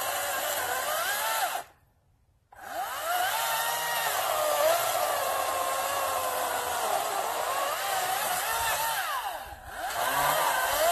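Greenworks 40-volt DigiPro brushless battery chainsaw cutting into a tree trunk, its motor whine sagging in pitch as the chain loads up in the wood and climbing again as it frees. It cuts out for under a second about two seconds in, then runs on with a short dip near the end.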